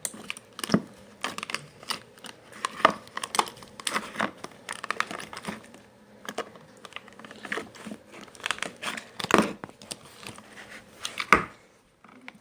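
Slime being squished and stretched, giving a run of irregular crackling and popping clicks.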